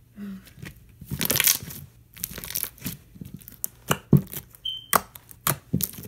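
Very thick slime being picked up, stretched and squished by hand, giving irregular sticky crackles, tearing sounds and pops, with a brief high squeak about three quarters of the way through.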